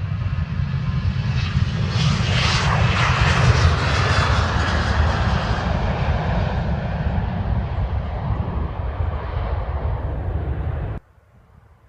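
Airliner engines as a plane passes close by. A loud, wide rush with a deep rumble swells to its peak about three seconds in, then slowly fades, and cuts off suddenly near the end.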